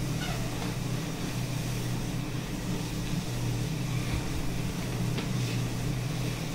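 Steady low electrical hum from running equipment, with a couple of faint clicks from keys pressed on the ultrasound console keyboard.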